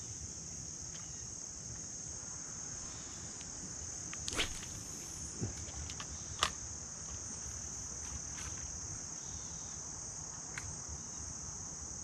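Steady, high-pitched chorus of insects trilling, with a few short, sharp clicks near the middle, the loudest a little past halfway.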